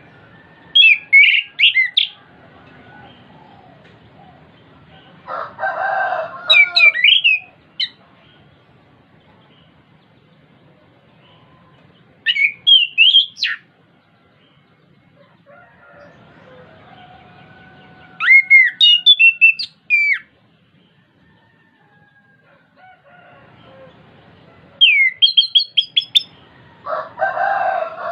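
Chestnut-capped thrush singing in about six short bursts of quick, high, whistled and trilled notes, with pauses of a few seconds between them. Twice a lower, rougher call sounds under the song, once about six seconds in and once near the end.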